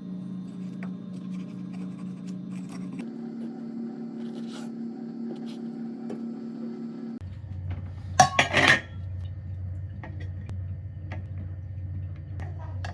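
Plates, cutlery and glass clinking on a table, with a louder clatter a little past halfway, over a low steady hum that shifts in pitch twice.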